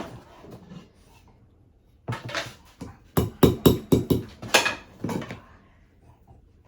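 A French bulldog giving a quick run of short, sharp barks, clustered in the middle of the stretch after a brief quiet.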